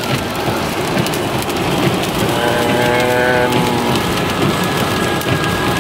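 Steady rain and wet-road tyre noise inside a car driving at highway speed in the rain. A drawn-out voice sounds briefly about two to three seconds in.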